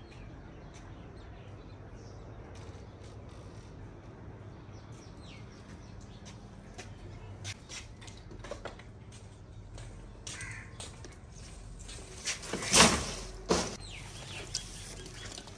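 Birds calling and chirping outdoors over a low, steady background, with two louder short sounds close together about thirteen seconds in.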